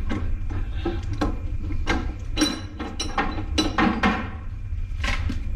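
A series of metal clanks and knocks as a bent steel part is handled and tried for fit, over a steady low rumble.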